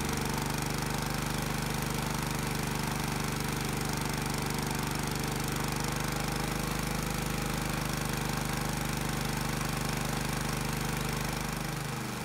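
Predator 212cc single-cylinder engine running steadily at about 3000 RPM, held by its governor while it drives an alternator under a heavy electrical load of about 3 horsepower. Near the end its pitch drops briefly.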